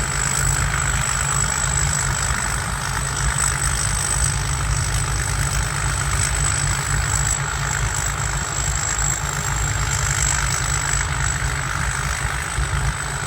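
Rice combine harvester's turbocharged diesel engine running steadily, a deep rumble with a thin, high, steady turbo whistle over it.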